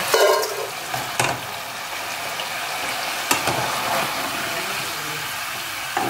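Potato fries deep-frying in hot sunflower oil, a steady sizzle, with a few short knocks of the metal skimmer scooping them out of the pot into an enamel bowl.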